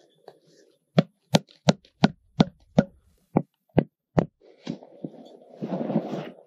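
A chunk of dead pine wood knocked repeatedly against the ground, about ten sharp knocks at roughly three a second, shaking off rotten bark and soil. Near the end comes a short rustle as the wood is pushed into a backpack.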